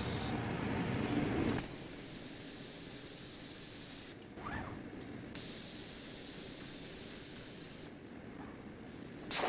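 CNC plasma torch cutting quarter-inch plate with an 80 amp tip: a steady hiss with a thin, very high whine. It runs in two stretches of about two and a half seconds, the arc stopping between them, then a loud burst near the end as it fires again.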